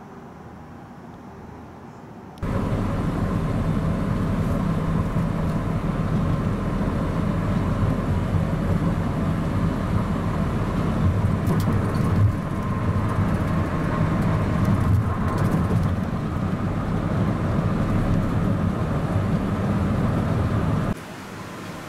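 Steady road noise inside a moving vehicle on a highway: a low engine and tyre drone. It cuts in abruptly a couple of seconds in, after faint outdoor ambience.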